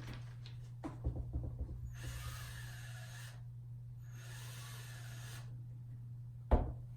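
A wall bracket being screwed to the wall by hand: a few small clicks and knocks, then two rasping strokes of about a second and a half each, over a steady low hum.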